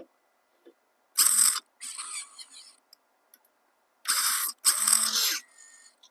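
RC crawler's motor and gear drivetrain whirring and scraping in four short bursts, two pairs a few seconds apart, as it is driven in spurts through brush and snow.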